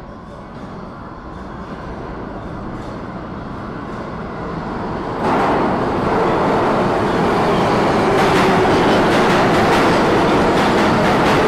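New York City subway train coming into the station, growing steadily louder, then jumping sharply in loudness about five seconds in as it reaches the platform. After that it stays loud, with the rapid clatter of wheels over rail joints.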